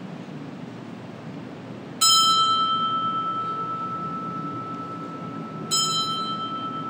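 Altar bell struck twice, about two seconds in and again near the end, each strike ringing on in one steady, slowly fading tone. It marks the elevation of the consecrated host at Mass.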